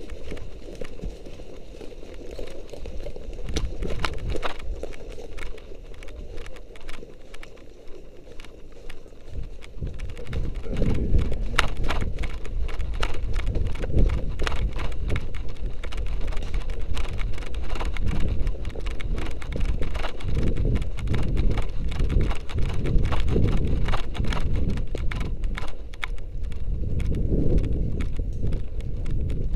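Running footsteps crunching through dry leaf litter and twigs on a forest floor, a quick, regular stride of impacts that gets louder and heavier about ten seconds in, over a low rumble.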